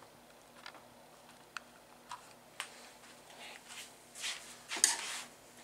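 A tool prying at the clips that hold a flat-screen TV's outer bezel: a few sharp clicks, then scraping, with the loudest scrape about five seconds in.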